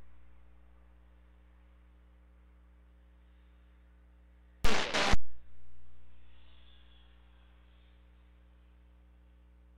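Air-traffic-control radio feed with no one talking: a faint steady mains hum. Halfway through, two sharp bursts of radio static about half a second apart fade out over a second or so.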